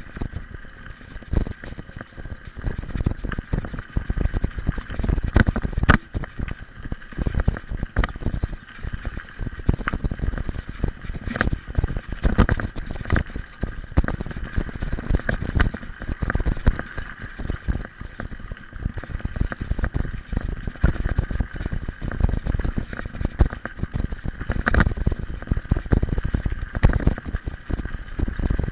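Mountain bike rolling over a gravel road: a rough, continuous rumble of the tyres on the stones, broken by frequent knocks and rattles as the bike jolts over bumps.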